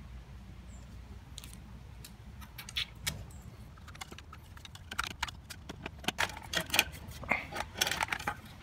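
Sharp clicks and light knocks, sparse at first and thickening in the second half: a one-handed quick-release bar clamp being worked while wooden stool legs and stretchers are handled and knocked together, over a low background rumble.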